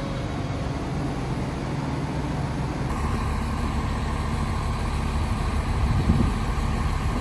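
Steady low engine hum of a train standing at the platform, growing slightly louder toward the end.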